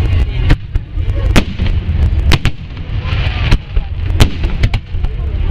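Fireworks salute: aerial shells bursting in a string of sharp bangs, about eight in all, over a continuous low rumble of launches and echoes.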